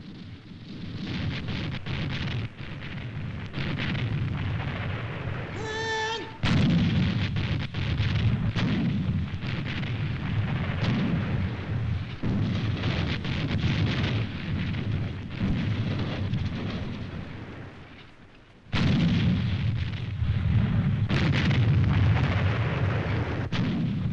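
Battle sound of heavy gunfire and shell explosions, a dense rumble packed with sharp blasts. About six seconds in a short wavering whistle sounds, and the firing then breaks out louder; it dies away toward eighteen seconds before another sudden loud burst of blasts.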